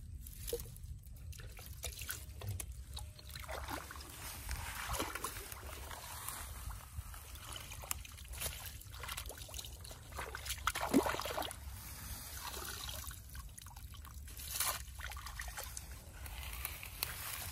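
Shallow paddy water sloshing and trickling as a woven bamboo scoop basket is dipped, dragged and lifted dripping, with feet wading through the water. It comes in a series of irregular swells, the loudest splash about 11 seconds in.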